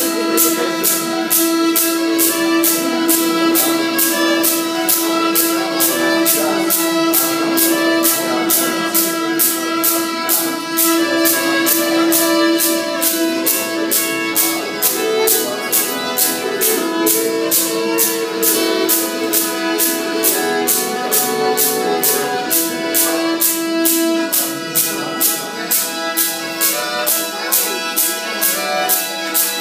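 Two shichepshin, Circassian bowed fiddles, playing an Adyghe folk tune over a steady drone, with a pkhachich wooden clapper keeping an even beat about twice a second.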